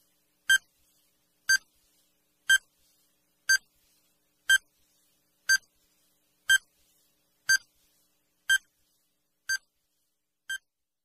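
Countdown-timer beep sound effect: a short, high electronic beep once a second, about eleven in a row, the last two fainter. It marks the seconds of a ten-second quiz timer running down to zero.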